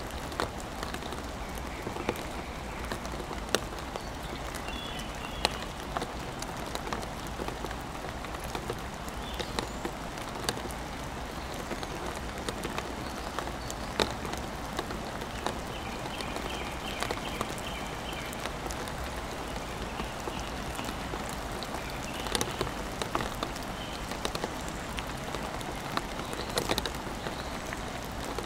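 Steady rain falling, with individual raindrops striking close by as sharp, irregular ticks over the even hiss.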